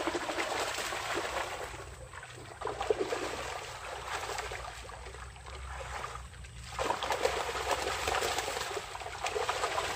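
Shallow muddy pond water splashing and trickling as it is worked through by hand and net, many small irregular splashes over a low steady hum. It goes quieter briefly about two seconds in and again around six seconds.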